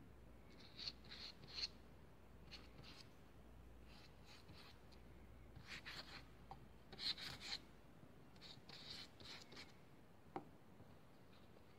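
Faint scratchy rubbing on paper in several short bursts of strokes as paper glue is spread across a paper cut-out, with one short tap near the end.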